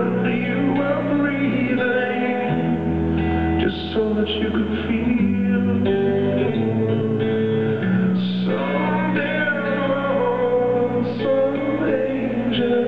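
Live acoustic guitar music, a slow song played on guitars with held low bass notes changing every second or two, recorded from the audience.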